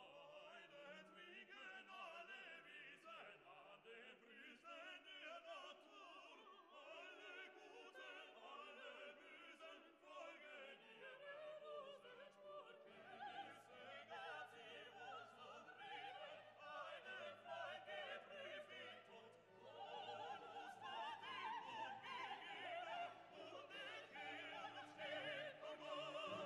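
Quiet classical music with operatic singing and orchestra, growing fuller about halfway through and again near the end.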